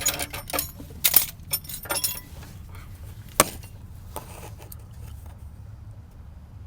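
Metal wrenches clinking and rattling against each other as they are picked up: a quick flurry of clinks over the first couple of seconds, then a few single clinks.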